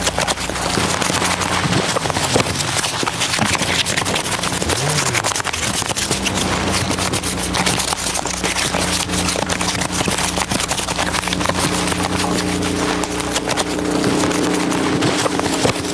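Dense, continuous crackling and clattering of recyclable packaging waste being handled and played as improvised instruments. Steady low hum tones run underneath, one briefly dipping and rising in pitch about five seconds in.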